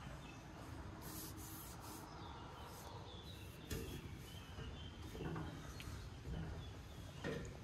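Faint birds chirping in short scattered calls, with a few light knocks and taps from a hand on a combine's perforated steel steps over a low steady rumble.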